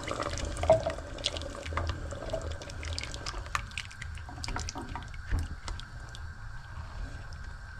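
Water dripping and trickling in a kitchen, with many short sharp clicks and light clinks over a low steady hum.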